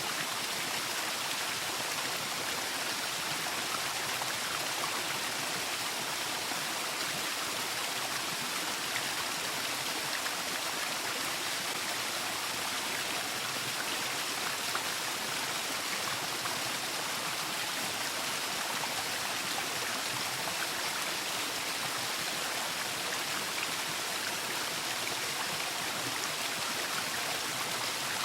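Waterfall: water falling and splashing in a steady, unbroken rush that is strongest in the upper range.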